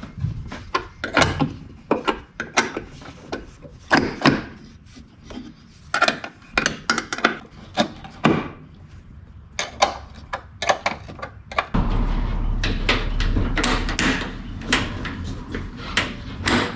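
Hand tools clicking and knocking on metal as the car's adjustable front hood brackets are raised. About twelve seconds in, a steady low hum starts under denser clattering.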